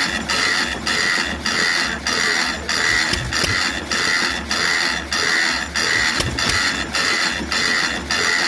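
Merit single-cylinder hot-tube-ignition engine running steadily, a regular mechanical beat a little under two times a second.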